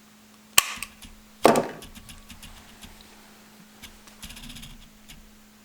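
Small metal clicks and one louder knock, then a brief light rattle: a cut copper spoon blank and hand tools such as tin snips being handled and set down on a workbench. A steady low hum lies underneath.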